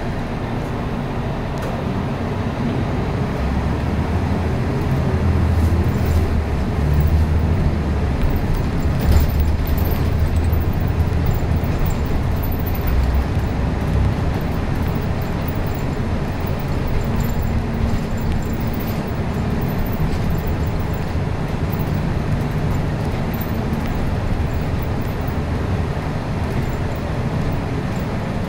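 City bus engine and drivetrain running as the bus drives, heard from inside the cabin with road noise. The low engine note grows louder and heavier a few seconds in, peaks around ten seconds, then settles to a steadier run.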